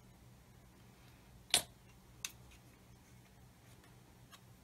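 A sharp plastic click about a second and a half in, then a lighter click about half a second later: the brush cap of a bottle of quick-setting liquid plastic cement being put back on its bottle.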